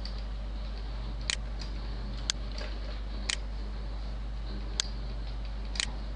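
Computer mouse clicking five times, sharp separate clicks about a second apart, over a steady low electrical hum.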